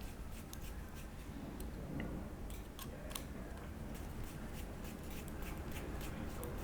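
Tiny hex bolts being tightened with a small hex driver into a 3D-printed plastic dashboard, making irregular light clicks and ticks.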